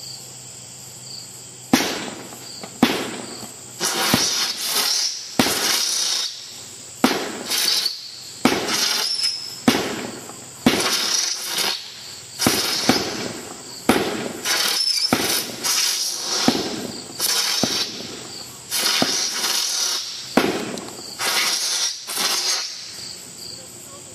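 Winda Cadmium Horse 16-shot firework cake firing in sequence: about sixteen sharp shots, roughly one every second and a half, each followed by the whistle and hiss of a silver spinning-flower burst.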